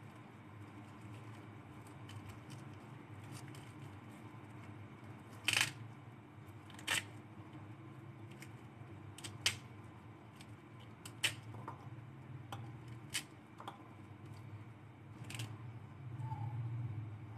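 A pomegranate being broken apart by hand over a glass bowl: faint cracks of the rind and seeds ticking into the glass, heard as about half a dozen short sharp clicks a second or two apart over a steady low hum.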